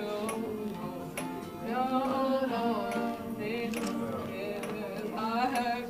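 A young woman singing a slow song to her own strummed acoustic guitar, the voice wavering over sustained chords with a few sharp strums.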